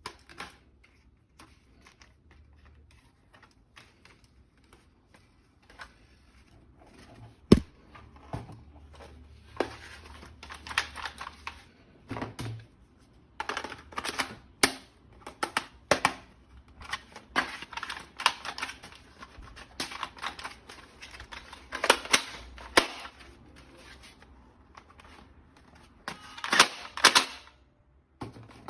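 Hard plastic clicks and rattles of a toy gun being handled, coming in irregular clusters of rapid clicks. A single sharp snap, the loudest sound, comes about seven and a half seconds in.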